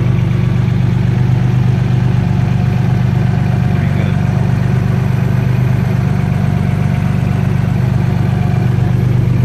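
1990 Toyota 4Runner's V6 engine idling steadily, heard from underneath the truck.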